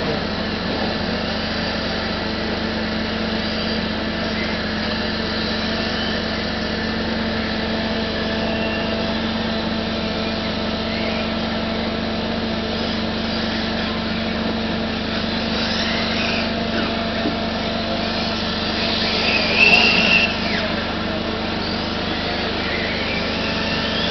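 Radio-controlled model racing cars running laps, their motors whining up and down in pitch as they pass, over a steady hum; the loudest pass comes about twenty seconds in.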